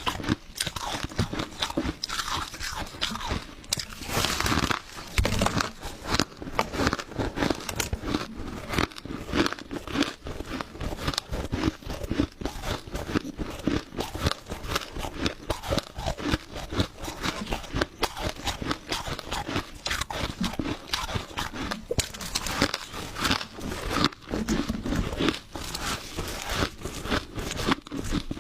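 Crushed ice being bitten and chewed close to the microphone: a dense, irregular run of crunches.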